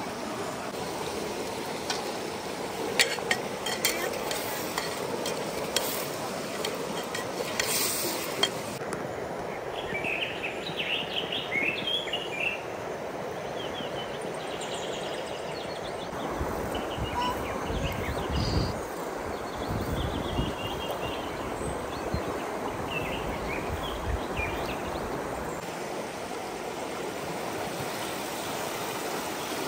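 Food frying in a pot with a steady sizzle, and a utensil stirring and clinking against the pot, the clinks mostly in the first third. A low rumble comes in around the middle.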